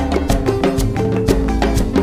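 Background music with percussion and a steady beat of about four strikes a second over a bass line.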